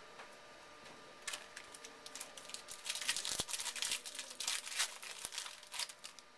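Wrapper of a trading card pack crinkling as it is torn open and handled: a dense crackle that starts about a second and a half in, is thickest in the middle and thins out near the end.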